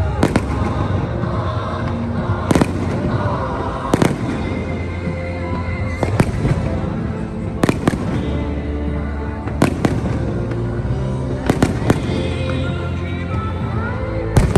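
Fireworks bursting: sharp bangs every one to two seconds, some in quick pairs, over music with a steady bass.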